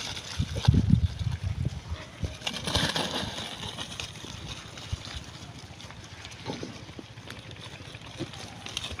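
Pigs rooting and feeding in dry crop litter: wet chewing and snuffling mixed with the rustle and crunch of stalks, loudest in the first few seconds and quieter after.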